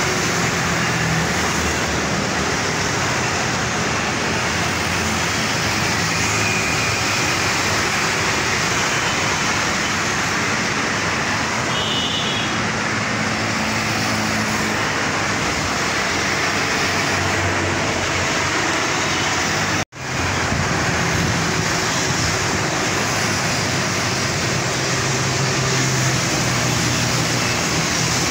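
Steady road traffic on a multi-lane road: motorcycles, cars and auto-rickshaws driving past, with a continuous rush of tyres and engines. The sound drops out for an instant about two-thirds of the way through.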